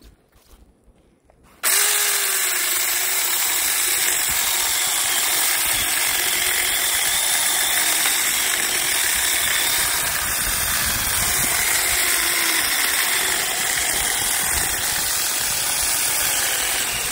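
Saker 20V mini cordless electric chainsaw switching on suddenly about a second and a half in, then running steadily as its chain cuts through a plum tree branch.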